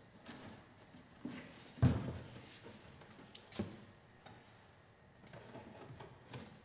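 A few dull knocks and taps of plastic against fiberglass as the gauge cluster's posts are pressed into the rubber grommets in a fiberglass race upper fairing. The loudest knock comes about two seconds in.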